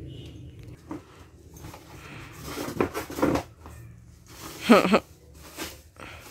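Rustling of white packing material being lifted out of a cardboard helmet box, with a soft knock about a second in. A brief vocal sound about five seconds in is the loudest moment.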